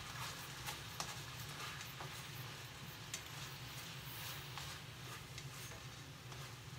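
Sweet and sour pork sizzling faintly in a frying pan as it is stir-fried in its sauce, with scattered clicks and scrapes of the turner against the pan.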